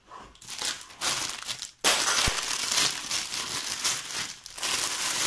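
Plastic bag crinkling in bursts as a wrapped kadai is handled and unwrapped, loudest from about two seconds in.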